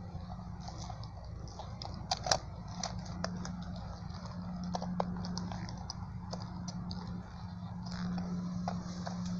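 Footsteps crunching through dry leaf litter and twigs, with irregular crackles and snaps.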